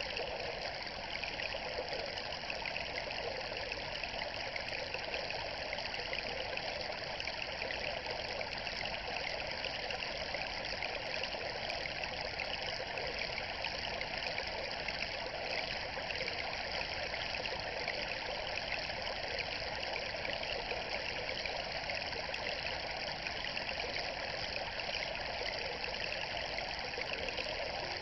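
Steady, even rushing of running water, like a flowing stream, unbroken throughout.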